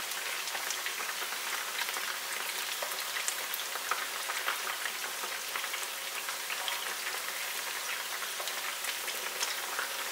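Batter-coated chicken strips deep-frying in hot oil in a pan: a steady crackling sizzle.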